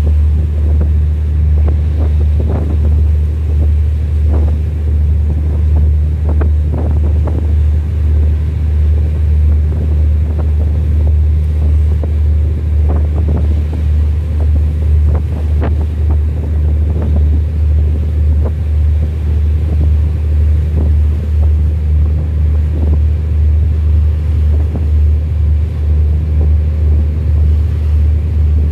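A boat's engine running with a steady low drone, with water splashing irregularly against the hull and wind buffeting the microphone.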